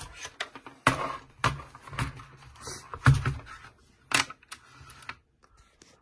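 MageGee TypeWriter mechanical keyboard being handled and turned over: about half a dozen irregular plastic clicks and knocks, some with a dull thud as the case meets the desk, with softer handling rustle between.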